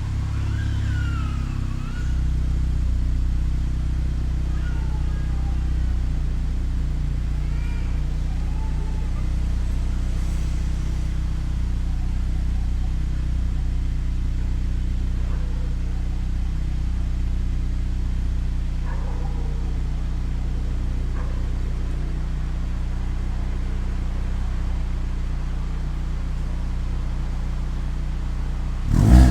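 Hyundai Tucson 2.0 idling steadily through a new full stainless-steel exhaust system, a low even drone. A sharp rev starts right at the end.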